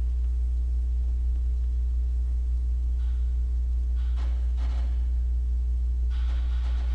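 Steady low electrical hum with a ladder of overtones, holding at an even level. Faint soft noises come and go around three, four and six seconds in.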